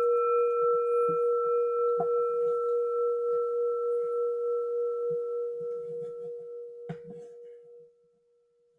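Singing bowl ringing out after a single strike: one long steady tone with a slow wavering pulse, fading gradually and dying away about eight seconds in.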